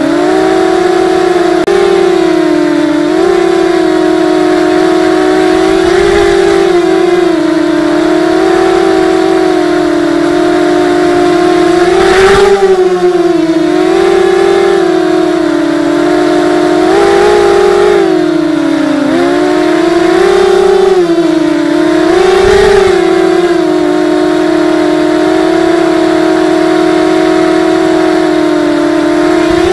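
Four RCX 1804 2400KV brushless motors spinning 5x4 propellers on a 260-size FPV quadcopter, heard through its onboard camera: a loud, steady propeller whine whose pitch keeps wavering up and down with throttle changes. Two short rushes of noise cut through it, about twelve and twenty-three seconds in.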